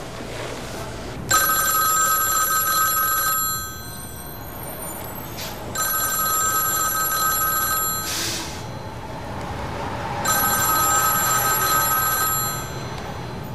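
Bell of a black rotary desk telephone ringing three times, each ring about two seconds long with a pause of about two seconds between rings.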